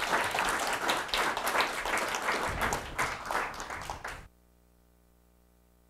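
Audience applauding, cutting off suddenly about four seconds in; near silence with a faint steady hum follows.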